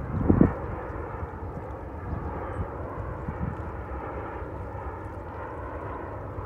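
A jet airliner's engines make a steady, rushing roar as it flies past low. A brief, louder low rumble comes in the first half-second.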